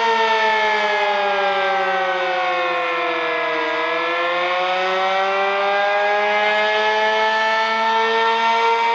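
Sentry 15V2T-B battery-powered dual-tone storm siren sounding the attack signal: its wail slides down in pitch for about three and a half seconds, then climbs back up. It is running short of full strength on batteries that need replacing.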